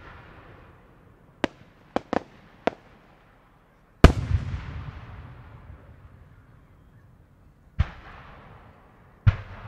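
Aerial firework shells bursting overhead, seven sharp bangs with echoing tails. The loudest comes about four seconds in and is followed by a long low rumble.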